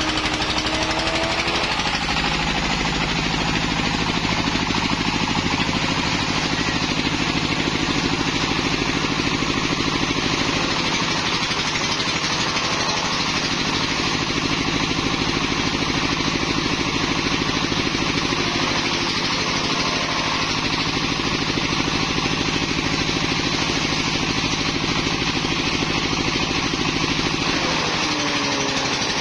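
Single-cylinder Jiang Dong diesel engine running steadily and loudly, driving a grass chopper whose blades shred grass stalks as they are fed in. A few brief shifts in pitch come near the start, midway and near the end.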